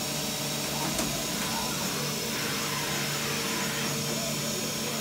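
Steady machine hum and hiss of a powered-up Mazak INTEGREX 200-IV CNC mill-turn lathe standing idle, not cutting, with several steady tones running through it.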